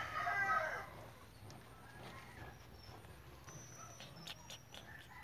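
A rooster crowing, the crow trailing off about a second in. After it come low background sounds with a few faint clicks toward the end.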